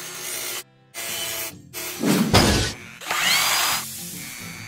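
Mechanical sound effects for an animated logo intro: whirring, drill-like bursts of robotic machinery that start and stop abruptly, with a short rising whistle about three seconds in, over music.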